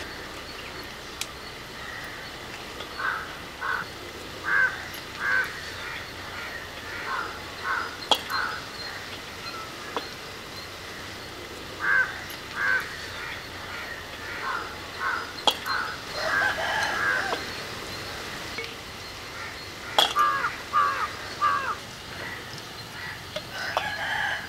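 Birds calling in the background: short calls in runs of two to four, repeated every few seconds. A few sharp clicks come between them.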